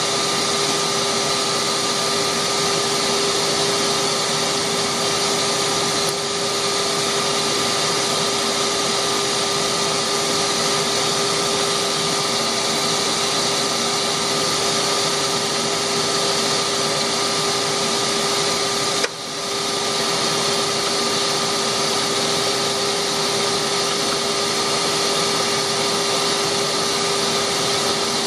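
Delta wood lathe running steadily with a constant motor hum and whine, the level dropping briefly about two-thirds of the way through.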